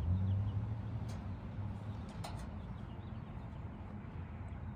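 A low rumble that is strongest at the start and slowly fades, with many faint, short, high chirps and two light clicks, one about a second in and another a little past two seconds.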